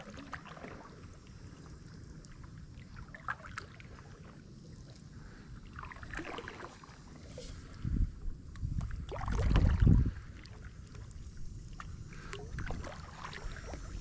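Stand-up paddleboard paddle dipping and pulling through calm water, with splashes and drips every few seconds. A louder low rumble on the microphone about eight to ten seconds in.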